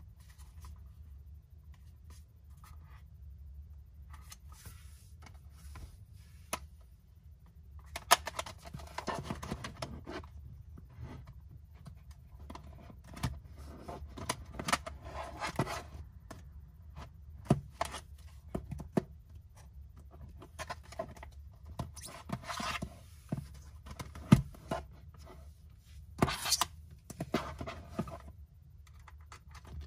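Handling noise from a Sony Discman D-J50 portable CD player being held and turned over in the hands: fingers rubbing and scraping on its case, with scattered sharp clicks and knocks, mostly in the second two-thirds, over a faint steady low hum.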